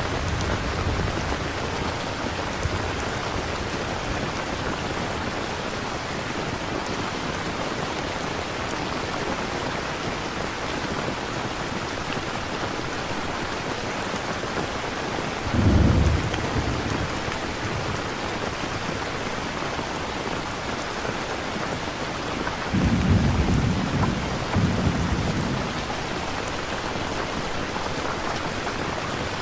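Steady rain falling, as a background rain-sound track, with low rolling thunder rumbling twice: once about halfway through, then a longer rumble near the end.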